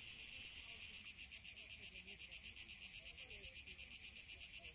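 Cicadas singing in a steady, high, pulsing chorus at about ten beats a second.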